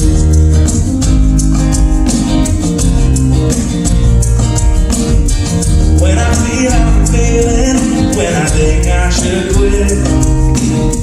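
Live acoustic band music: strummed acoustic guitar over a steady bass line, with a voice coming in singing about six seconds in.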